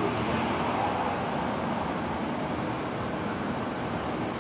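Steady road traffic noise: an even rush with no distinct events.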